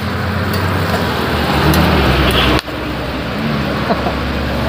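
A vehicle engine idling: a steady low hum that dips sharply for a moment a little past halfway.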